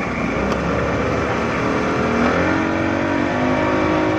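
200-horsepower speedboat engine heard from inside the passenger cabin, its pitch climbing steadily from about halfway through as the boat accelerates.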